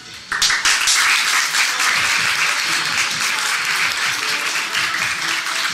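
A room of students applauding, breaking out suddenly just after the start and going on steadily.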